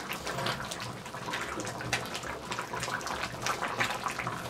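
Thick goulash boiling hard in a cast-iron Dutch oven over charcoal, an irregular run of bubbling and popping as it is stirred with a wooden spoon.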